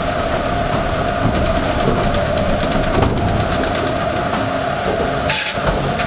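Automated sawmill machinery running: a steady whine over the continuous rattle and clatter of the log-handling conveyor and saw deck, with a brief hiss about five seconds in.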